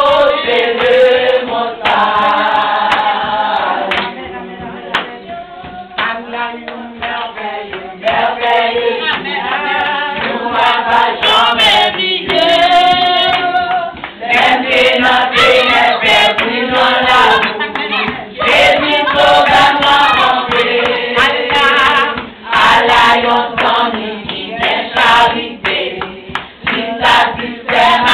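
A group of women singing a worship song together, with rhythmic hand clapping. The singing is softer for a few seconds near the start, then returns at full strength.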